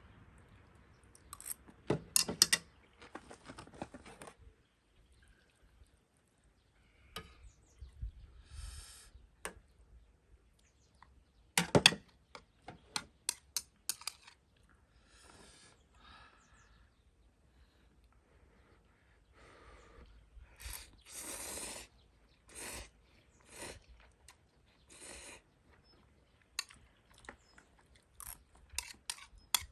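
Instant ramen being eaten: chewing and slurping of noodles, with sharp clicks of utensils against the pot, the loudest about two seconds in and again near the middle.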